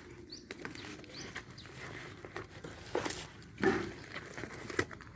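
Handling noise of a saw-blade package: rustling and light knocks as the packaging and blade are turned over, louder about three seconds in. A few short bird chirps sound in the background, mostly early on.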